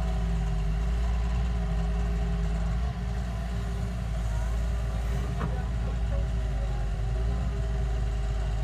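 Engine of a heavy machine running steadily, a continuous low rumble.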